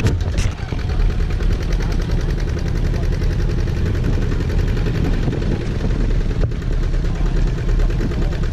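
Tractor engine running steadily with a fast, even beat as it pulls a trailer loaded with passengers along a rough dirt track, heard from the trailer behind it.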